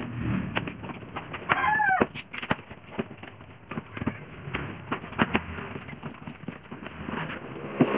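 Cardboard speaker boxes being handled, with repeated taps, knocks and flap rustles. About a second and a half in, a chicken gives one short call that rises and falls in pitch, the loudest sound here.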